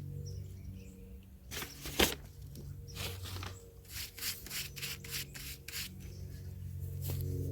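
Repeated short scrapes and rubs, with one sharp knock about two seconds in, over a low steady hum.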